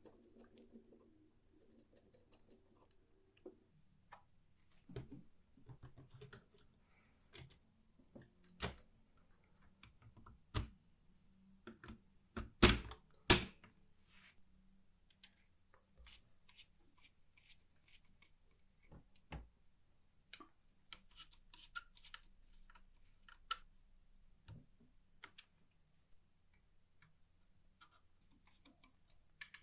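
Scattered small clicks and taps of metal parts and hand tools being handled while working on an old manual typewriter, with two louder knocks in quick succession a little before the middle.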